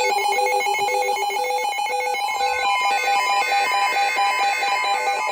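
Electronic alert tones: one steady tone held throughout, with several other higher and lower tones switching on and off in a quick repeating pattern, like a ringing alarm.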